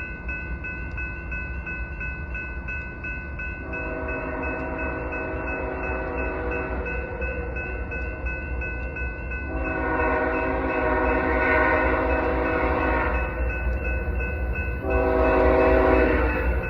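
Approaching diesel freight locomotive sounding its air horn in the grade-crossing pattern: two long blasts and a short one, with the final long blast following just after. Under it, a crossing bell rings steadily at about two strokes a second, over the low rumble of the approaching train, which grows louder.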